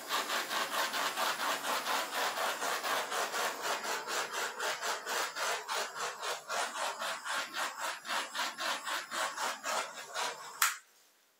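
Rapid, even scraping or rubbing, about four to five strokes a second, stopping with a sharp click near the end.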